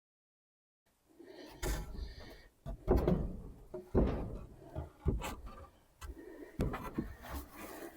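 A series of irregular knocks and thuds, about eight, each dying away quickly, starting after about a second of silence.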